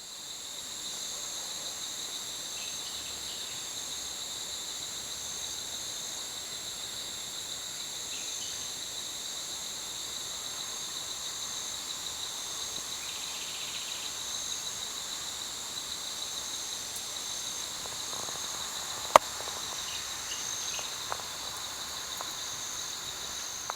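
Insects chorusing: a steady, high-pitched trilling drone that does not change, with one sharp click about two-thirds of the way through.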